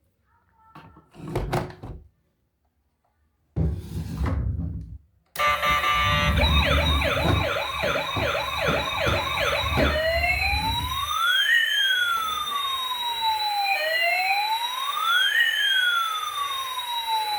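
A couple of short handling knocks, then a battery-powered toy emergency vehicle's electronic siren sounds about five seconds in: a fast warble for about five seconds, then a slower wail rising and falling.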